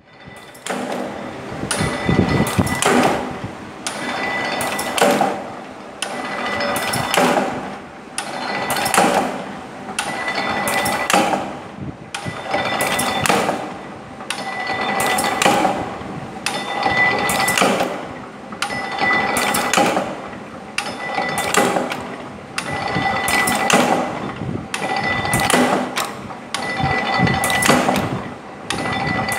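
Mechanical power press fitted with a pneumatic safety actuator, cycling stroke after stroke: the air cylinder works the trip lever and the press knocks about once every two seconds. A steady machine tone runs underneath.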